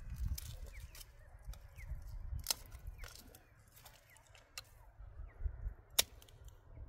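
Dry sticks being handled, snapped and laid on a small twig pile, with a few sharp cracks a few seconds apart over a low wind rumble.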